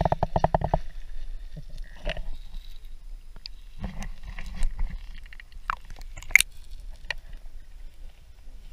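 Water sloshing and knocking against an action camera's waterproof housing as it moves below and at the surface of the water. A rapid run of taps opens the sound, and sharp clicks follow here and there, the loudest about six seconds in.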